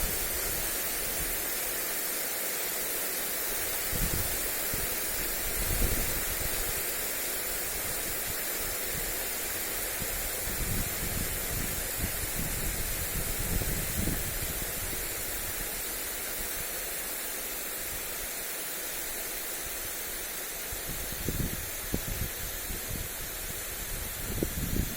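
Lawn sprinkler spraying water onto grass, a steady hiss, with gusts of wind buffeting the microphone in low thumps several times.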